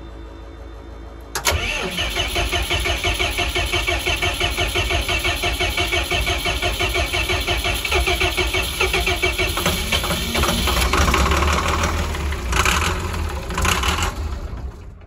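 Starter cranking a 24-valve 5.9 Cummins diesel in an even chugging rhythm, with injector lines cracked to push the air out of the fuel system; the engine is chugging to life. It starts suddenly a second or so in and cuts off just before the end.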